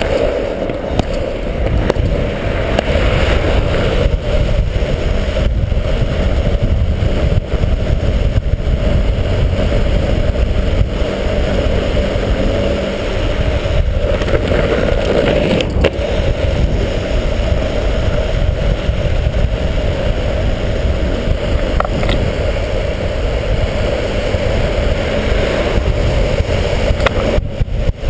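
Longboard wheels rolling fast on asphalt, a steady noise with heavy wind buffeting on the camera microphone.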